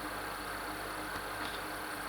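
Steady hiss with a low electrical hum, and a faint tick about a second and a half in.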